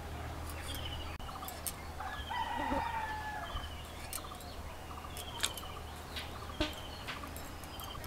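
Chickens calling and clucking in the background, loudest about two seconds in, with short repeated chirps throughout. A few sharp snaps come from a boti blade cutting drumstick stalks.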